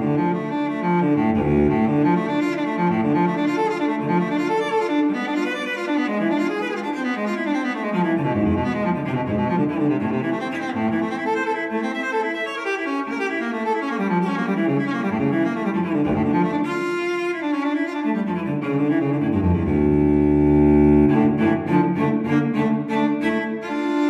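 Background music of sustained bowed strings with a low cello line, moving slowly from note to note.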